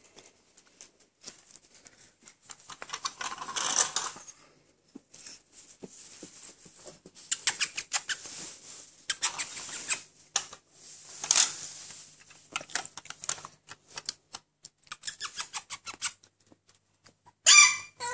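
Young Alaskan Malamute puppies scrabbling and rustling on a shag rug: irregular scratchy rustles and light clicks that come and go, with a short high squeal near the end.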